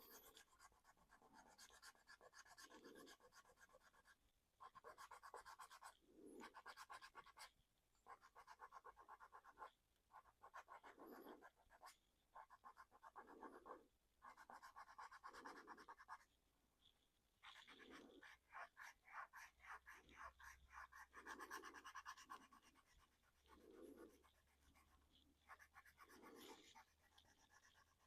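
Faint, irregular scratchy rubbing strokes on a painted plastic model body as paint is worked off to expose the primer underneath.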